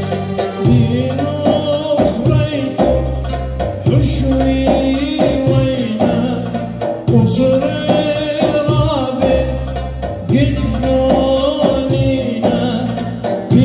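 Live Middle Eastern music: a man singing in Syriac, his melody wavering and ornamented, over an oud and an electronic keyboard that plays a repeating bass line with light percussion.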